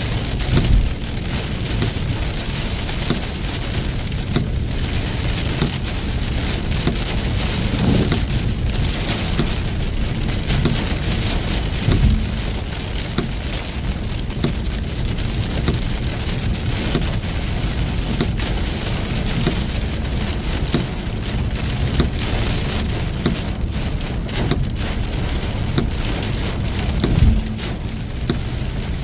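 Heavy rain falling in a steady, dense hiss, with a few short low thumps now and then, the loudest near the end.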